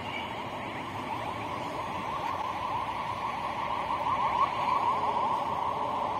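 Tank wagons being shunted: a steady, wavering metallic squeal from wheels on the rails, growing louder about four seconds in.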